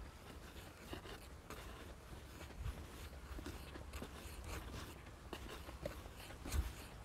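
Footsteps of a person walking, short scuffing steps at an even walking pace, over a low steady rumble.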